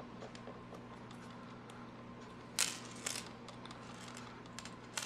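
Faint clicks and ticks of monofilament fishing line and a small metal barrel swivel being handled while a Palomar knot is tied, with a sharper tick about two and a half seconds in and another near the end, over a low steady hum.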